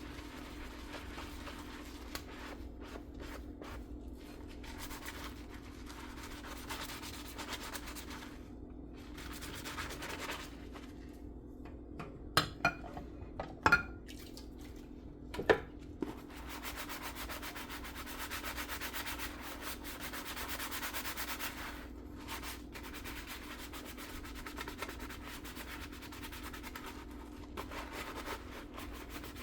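Sponge scrubbing dishes by hand at a sink, a continuous rubbing rasp. Three sharp clinks of dishware knocking together come about halfway through, over a faint steady hum.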